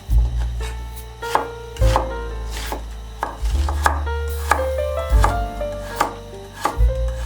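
Knife chopping food on a cutting board, single sharp strokes about every half second at an uneven pace, over background music.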